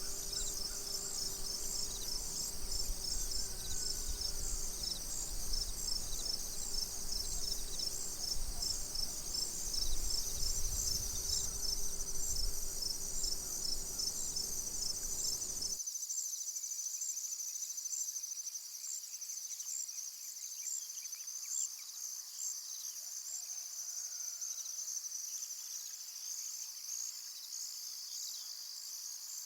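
Crickets chirping in a steady chorus of fast, high pulses. A low rumble underneath cuts out about halfway through.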